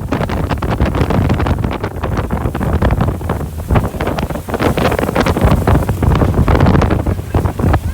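Windstorm wind buffeting the microphone in heavy, irregular gusts with rapid knocks and pops.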